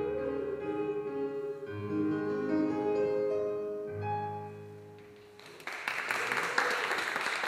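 The closing piano chords of a choral song, with the soloist's last held note, ringing out and fading away. About five and a half seconds in, audience applause breaks out.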